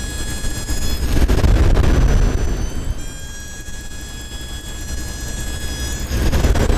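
High-pitched squeal from a 1996 Dodge Dakota, holding a steady pitch with overtones, over the low rumble of the truck running; the owner cannot trace where it comes from. A rushing swell about a second in, and again near the end, partly covers it.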